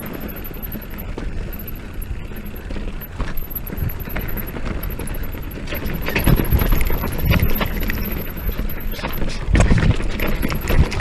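Electric mountain bike clattering over a rocky trail: tyres knocking on rock and the chain and frame rattling, over a steady low rumble of wind and rolling noise. The knocking gets heavier about six seconds in and again near the end.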